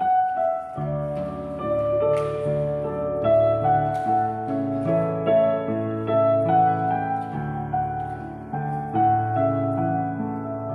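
Keyboard playing a slow instrumental introduction of chords and melody, with a new note or chord about every second, ahead of the choir's entry.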